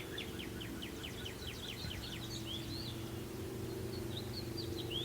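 A songbird singing a fast run of short repeated chirps, about five a second, that breaks off about halfway through, followed by a few scattered slurred notes. A steady low hum runs underneath.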